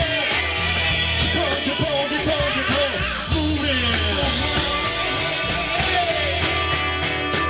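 Live rock band playing a song: drums and bass keep a steady bed under guitars, with a wavering lead melody line on top.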